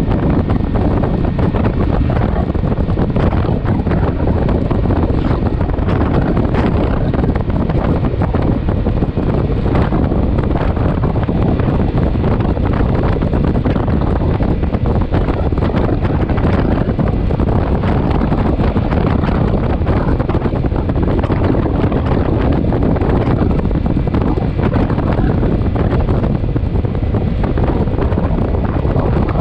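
Wind buffeting the microphone of a moving motorcycle: a loud, steady rush with the motorcycle's running mixed underneath.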